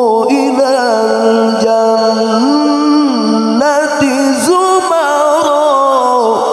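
A male qari chanting Quranic recitation (tilawah) in the melodic murattal/mujawwad style into a microphone: one long phrase of held, wavering notes with ornate melismas, climbing higher about halfway through.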